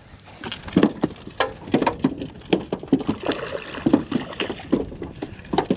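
Water slapping and splashing against the side of a small boat in short, irregular slaps, two or three a second, while a hooked speckled trout thrashes at the surface.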